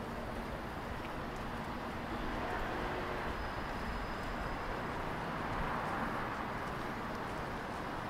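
Outdoor city street ambience: a steady wash of distant traffic noise, growing slightly louder a couple of seconds in.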